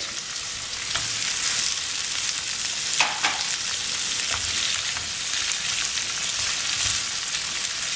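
Diced paneer, bell peppers and onions sizzling steadily in hot olive oil in a non-stick frying pan, with a few short scrapes and knocks as a spatula stirs them.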